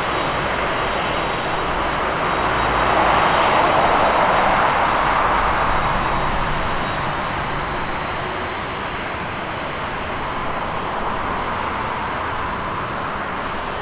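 Boeing 747-8F freighter's four GEnx-2B turbofan engines running at taxi power as it rolls and turns past: a steady jet rush that swells about three to five seconds in, then slowly eases.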